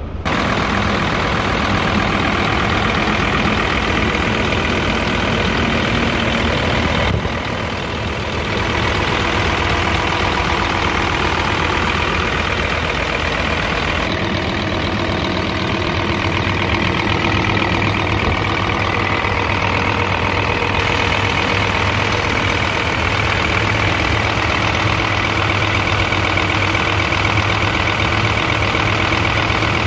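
Scania P-series truck's diesel engine running steadily at idle, heard up close in the open engine bay with the cab tilted.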